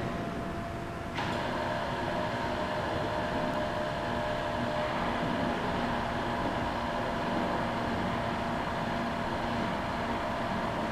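Steady mechanical hum with a faint whine, stepping up louder about a second in as a small motor starts, drawing up the gown's skirt through its internal lifting mechanism.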